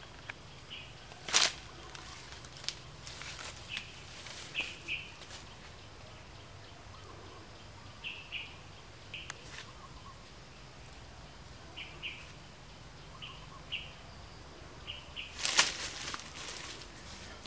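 A hoe striking soil and leaf litter during digging: one sharp hit a little after the start, then a louder cluster of hits and rustling near the end. Between them, short bird chirps repeat.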